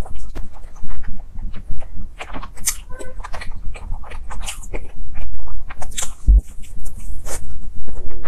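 Close-miked chewing and lip-smacking of a soft cream-filled sponge cake, with many short, irregular mouth clicks and smacks.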